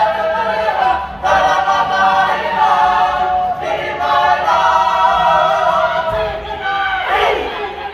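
Māori kapa haka group singing an action song together in many-voiced harmony, phrase after phrase with short breaks for breath between them.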